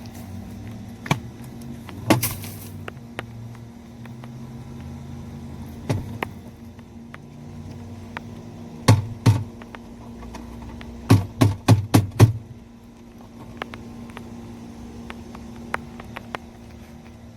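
Scattered sharp clicks and knocks of objects being handled, with a quick run of about five near the middle, over a steady low hum.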